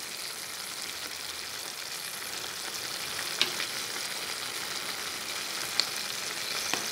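Pork liver stir-fried with onion, spring onion and chili sizzling in a stainless pan on the heat, a steady frying hiss with a few sharp pops, the first about halfway through and two more near the end.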